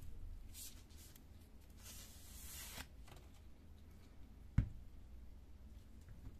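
Faint handling of printer fuser parts: a rustle lasting about a second, a few light ticks, then a single sharp knock about four and a half seconds in.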